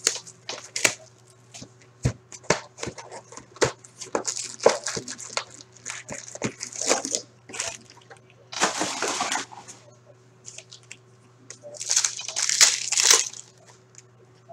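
Cardboard box of Upper Deck hockey card packs being torn open and its foil packs handled: scattered clicks and rustles, with a longer tearing, crinkling burst near the middle and another near the end as a pack is ripped open.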